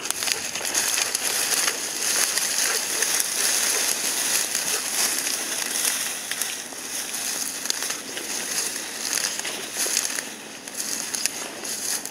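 Steady rustling and crackling of dense weeds and dry stems and leaves being pushed through on foot by a person and dogs, full of small snaps and crinkles.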